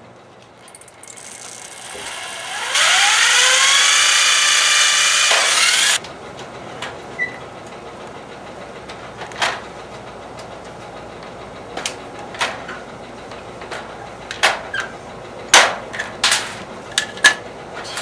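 Electric drill whining as it spins up, rising in pitch, and drills out a pop rivet that failed to set; it stops abruptly about six seconds in. Then a run of sharp clicks and knocks as the hand pop-rivet gun is set against the piano hinge and worked.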